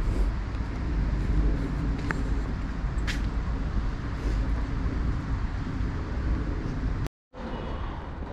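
Outdoor street ambience dominated by a steady low rumble, with a short click about two seconds in and a brief high chirp a second later. Near the end the sound cuts out abruptly and comes back as a quieter ambience.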